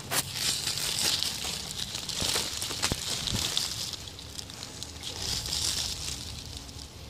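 Pumpkin leaves and bristly stems rustling and crackling as a hand pushes through them, in two main bursts with a few sharp clicks.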